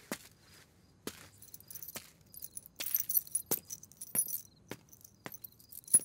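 Footsteps at a walking pace, about one sharp step every 0.6 to 0.9 seconds, with a bunch of keys jingling in between.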